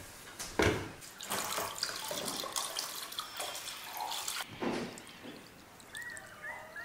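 Metal sewing-machine parts set down into a plastic bucket with a knock, then white vinegar poured from a plastic jug into the bucket, splashing over the parts. A bird chirps a few times near the end.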